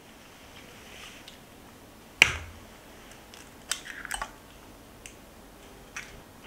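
A hen's egg being cracked: one sharp knock of the shell about two seconds in, then a short crackle as the shell is pulled apart and the egg drops into a small enamel saucepan, with a few light clicks of shell after.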